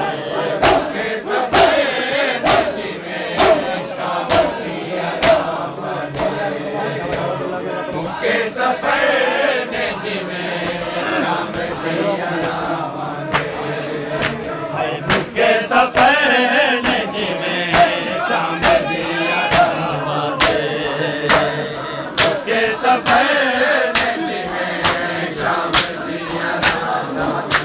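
A crowd of men chanting a mourning lament (nauha) together, with sharp, steady slaps of hands beating on bare chests (matam) keeping the rhythm.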